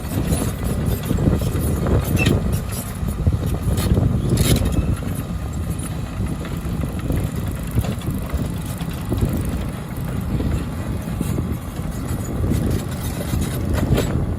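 Heavy diesel earth-moving machinery running under load with a steady low rumble, and a few sharp metallic knocks, about two and four and a half seconds in.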